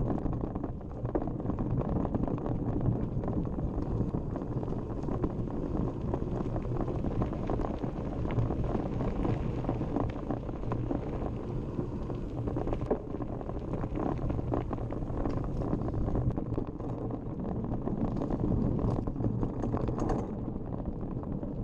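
Mountain bike riding down a dirt and gravel trail: a steady rumble of tyres and wind buffeting the camera microphone, with constant small rattles and clicks from the bike over the rough ground.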